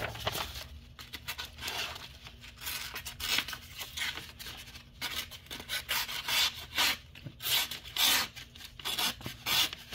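A sharp Rosecraft Clinch River Swayback slipjoint's D2 steel blade slicing through a sheet of paper: a string of uneven rasping swishes and paper rustles, the loudest cuts near the end.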